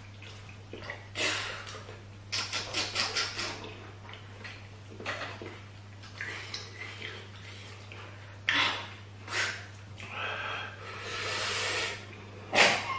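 Wet mouth sounds of eating okra stew and banku by hand: chewing, lip-smacking and slurping in short bursts. There is a quick run of smacks about two to three seconds in, a longer hissing slurp around eleven seconds, and a sharp click near the end.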